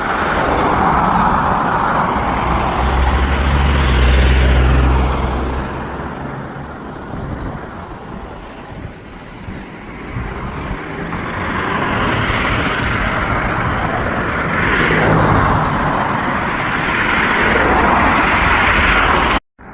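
Road traffic: vehicles passing one after another, the noise swelling and fading several times, with a deeper engine rumble from a heavier vehicle a few seconds in.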